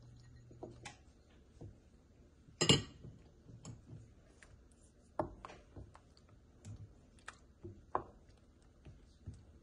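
Wooden spoon stirring thick soup in a stainless steel pot, with scattered light knocks and scrapes against the pot. One louder, sharp clink comes about three seconds in.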